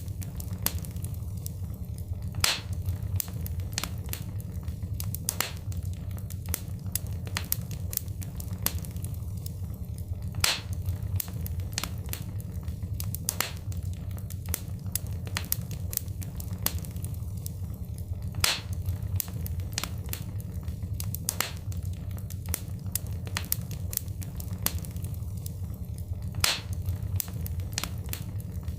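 Wood fire crackling: a steady low rumble of flame with many small sharp pops and snaps, and a louder pop about every eight seconds.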